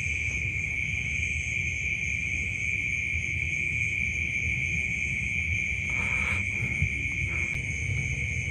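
Crickets trilling in a steady, unbroken chorus, with a low rumble underneath.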